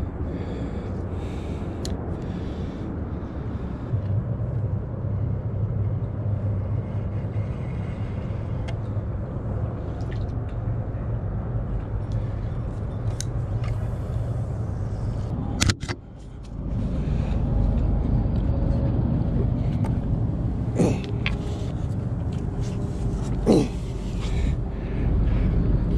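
Steady low rumble with a few sharp clicks. It breaks off briefly about sixteen seconds in, then comes back louder.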